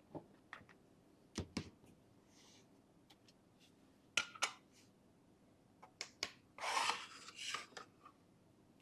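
Victorinox multi-tool pocket knife being folded shut: a series of sharp metal clicks as the blades and tools snap closed, with a short scraping rub about seven seconds in.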